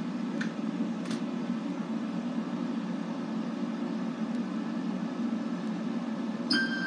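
A steady low hum with a couple of faint clicks near the start. About six and a half seconds in, a bright ringing chime tone starts suddenly and holds.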